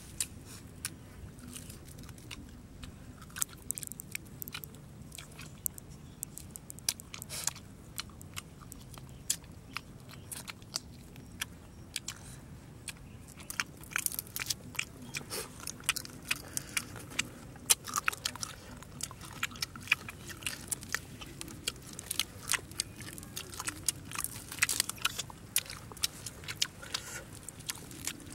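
Crisp, irregular crunching and crackling of charred, fire-roasted bat being pulled apart by hand. The crackles come thicker in the second half.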